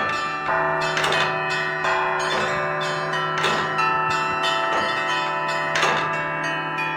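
Russian Orthodox church bells rung together in a peal: many bells ringing and overlapping, with a heavier stroke about every 1.2 seconds and lighter, higher bells struck between.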